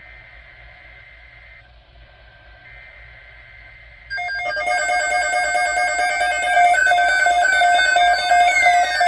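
Electronic emergency alert tones from weather alert receivers. After a faint, broken tone, they start suddenly and loud about four seconds in: several overlapping tones beeping in a fast pattern, with two falling glides near the end.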